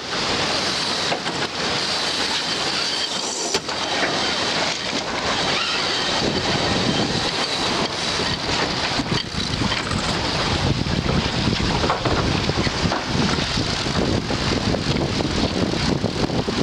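Wind buffeting the microphone over the steady rush of water along the hull of a racing catamaran under way.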